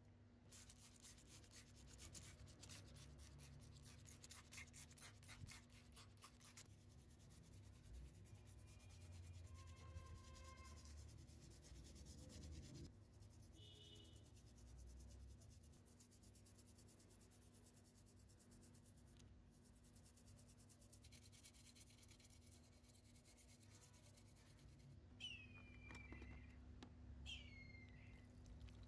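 Faint scrubbing of a toothbrush's bristles over small die-cast model car parts, in runs of quick rubbing strokes. Two short falling squeaks come near the end.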